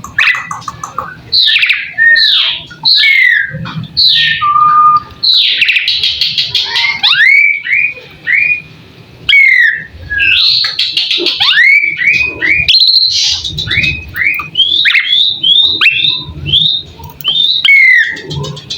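Asian pied starling (jalak suren) singing a long, varied song: quick whistled notes sliding up and down in pitch, mixed with harsh rattling chatter and only brief pauses.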